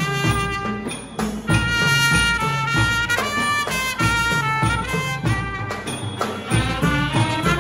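Thai traditional brass band (trae wong) playing a slow melody, a trumpet carrying the tune over saxophone and other horns.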